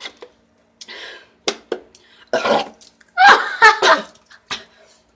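A woman burping after drinking carbonated diet cola: a string of short burps, the loudest two a little past the middle, with quieter breathy and clicking mouth sounds between them.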